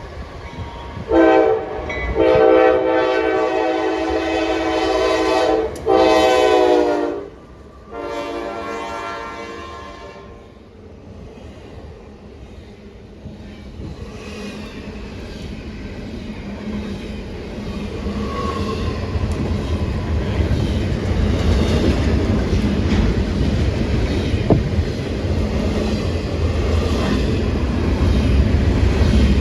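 Norfolk Southern locomotive air horn sounding four blasts, a short one and then three longer ones, its pitch dropping during the third as the locomotive passes. After the horn stops, the rumble and clickety-clack of the train's wheels on the rails build and stay loud.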